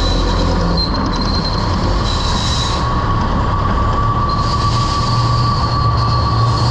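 Heavy-haul truck running loaded, a steady low rumble of engine and road noise, with a high, steady squeal coming in about a second and a half in and holding through the rest.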